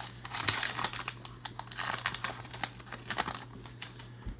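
Baseball card pack wrapper being torn open and crinkled by hand, a dense crackling for about three seconds, followed by quieter handling of the cards.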